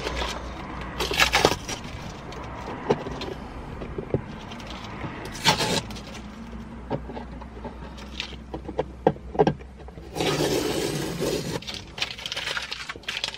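Masking tape being peeled off a car's plastic centre console and crumpled in the hand: irregular rustling and crackling with small clicks and scrapes, and a longer rustle about ten seconds in.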